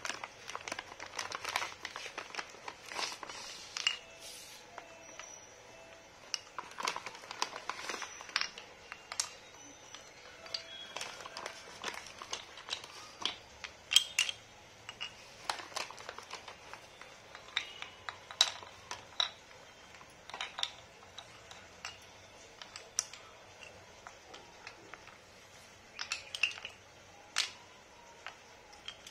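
Plastic packet crinkling as it is handled for the first several seconds, then scattered light clicks and taps of slate pencil sticks being set down and knocked against each other on a marble floor.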